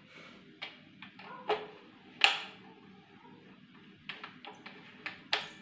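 Plastic control knob on a Pigeon gas stove clicking as it is turned by hand: a string of short, sharp clicks, the loudest about two seconds in and a quick cluster near the end.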